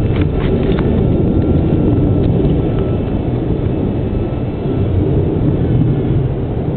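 Faint, thin whine of a GWS Slow Stick RC plane's brushless electric motor, fading over the first few seconds as the plane climbs away. It sits under a loud, steady low rumbling noise, with a few sharp clicks in the first second.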